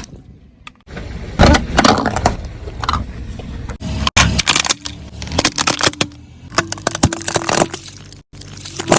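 A car's tyre rolling over and crushing brittle objects: repeated cracking, crunching and breaking in several loud bursts, cut off abruptly twice.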